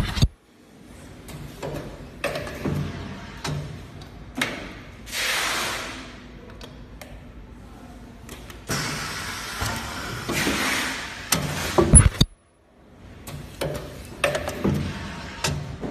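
Tube filling and sealing machine cycling: clunks and knocks of its moving parts between bursts of hissing that each last about a second, with a heavy thump about twelve seconds in.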